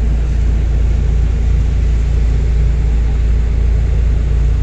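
Excavator's diesel engine running steadily with a deep, even hum, heard from the operator's cab while the machine holds its bucket against a tugboat's hull.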